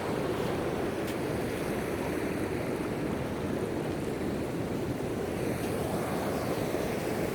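Steady rush of ocean surf breaking and washing up the beach.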